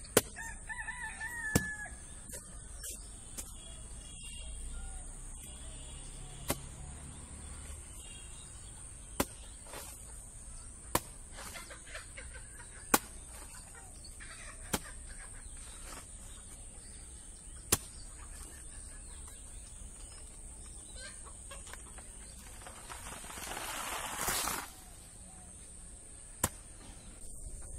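A rooster crows once near the start, over a steady high thin hiss. Sharp single knocks sound every few seconds, and a brief rustling swell comes near the end.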